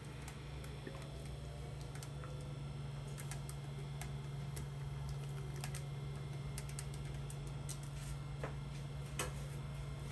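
Low steady hum with sparse light clicks and taps of a soymilk maker jug against a ceramic bowl as thick black sesame paste is poured, the pour itself barely audible.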